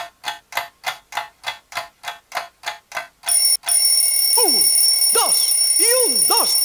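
Sound effect of a clock ticking evenly, about four ticks a second, then from about three seconds in a loud alarm ringing with several steady high tones, with falling swoops sliding down over it.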